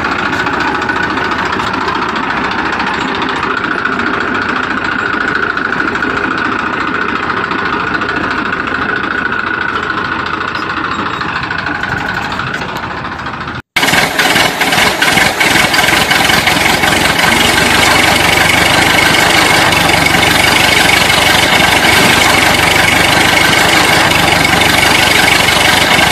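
Engine sound, steady and continuous, laid over a plastic toy tractor pulled along on a string. About 14 seconds in it cuts off abruptly and resumes at once, louder and brighter.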